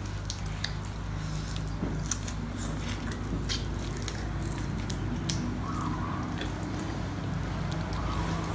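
Close eating sounds of people sucking jelly out of small plastic cups: scattered wet squishes, slurps and mouth clicks over a steady low hum.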